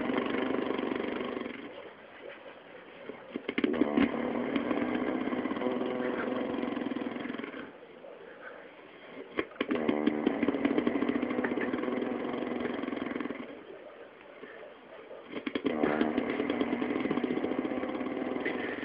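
A man snoring loudly with a rattling, motorcycle-like snore. A snore trails off at the start, then three more follow about six seconds apart. Each lasts about four seconds and opens with a rattle, with quieter breaths in between.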